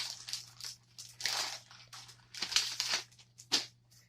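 Packing material crinkling and rustling in irregular bursts as items are pulled out of a shipping box, over a steady low hum.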